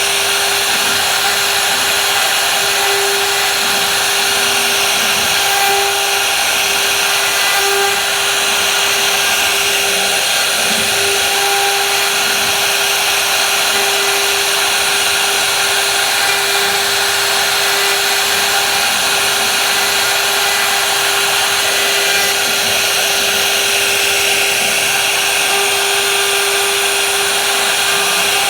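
Electric woodworking power tool running continuously, a steady whine at one pitch over a dense hiss, with no pauses or changes in speed.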